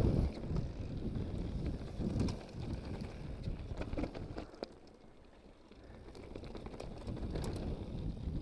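Mountain bike rolling fast down a loose slate-gravel trail: tyres crunching over stones, rattles from the bike, and wind buffeting the microphone. It goes quieter for a couple of seconds about halfway through, then builds again.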